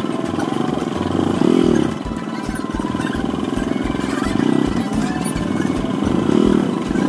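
Motorcycle engine running at low speed in stop-and-go traffic, with a few brief throttle rises.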